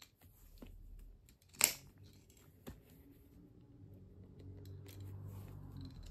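Rotary leather hole-punch pliers squeezed through leather, with a loud sharp snap about one and a half seconds in and a smaller click a second later. Handling noise follows, and another sharp snap comes right at the end.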